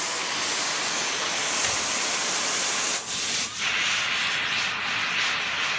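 Loud steady hiss of a gas torch flame heating a steel rod so it can be bent. It drops out briefly about halfway through, then comes back with a brighter tone.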